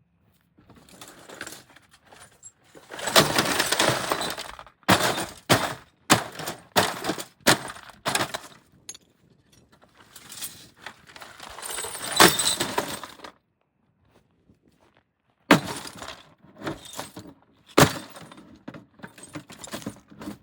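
An old CRT television being smashed with a hammer: a run of sharp blows with glass breaking and shattering, including two longer stretches of crunching glass.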